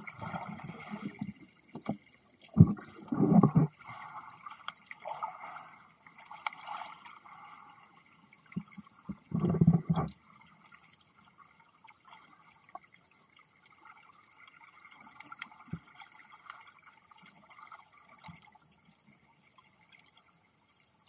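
Underwater sound heard through a sealed camera dive case: muffled water movement and knocks, with louder rumbling bursts about three seconds in and again around nine to ten seconds, then quieter with scattered faint ticks.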